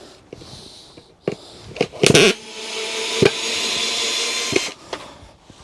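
Cordless drill-driver backing a screw out of timber: a few knocks as it is set against the wood, then the motor runs steadily for about two seconds and stops.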